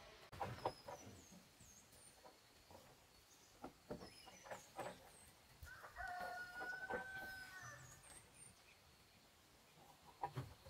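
A rooster crowing once in the background, a single held call of about two seconds starting about six seconds in, over small birds chirping. Soft knocks and rustles come from hands working soil around seedlings.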